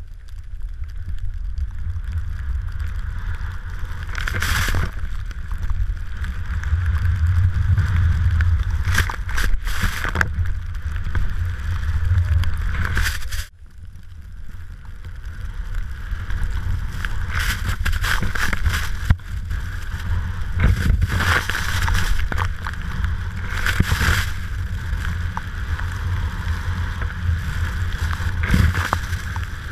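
Wind buffeting the camera's microphone in a loud, steady low rumble while a rider descends through deep powder snow, with repeated bursts of hissing snow spray at the turns. The rumble cuts out for a moment about halfway through.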